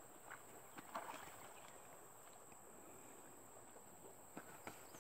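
Near silence: a faint steady high hiss with a few soft clicks and rustles, the most distinct about a second in.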